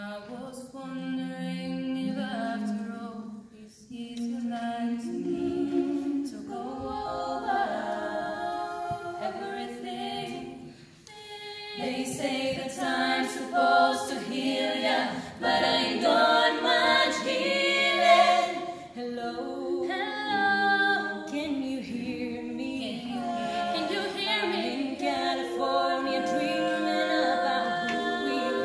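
Female a cappella group of five voices singing in close harmony without instruments. The sound thins out briefly about eleven seconds in, then grows fuller and louder.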